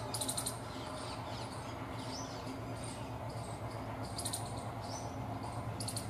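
Small birds chirping in the background, with short rapid high trills near the start, about four seconds in and at the end, over a steady low hum.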